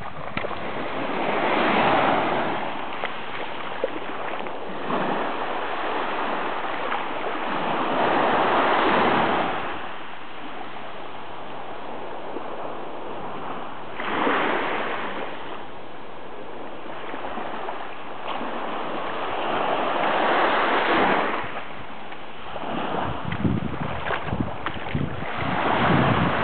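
Small waves breaking and washing up a sandy shore, rising and falling in slow surges about every six seconds.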